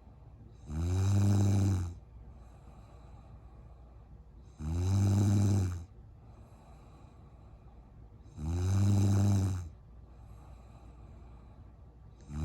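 A woman snoring: three long, loud snores about four seconds apart, each lasting a little over a second.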